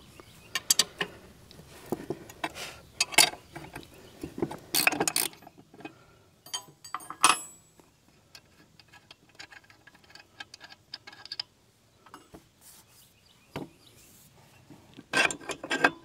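Irregular metallic clinks, taps and knocks of the hinge bolt being worked out of the steel seat hinge on a TYM BH150 backhoe, with quieter stretches between them.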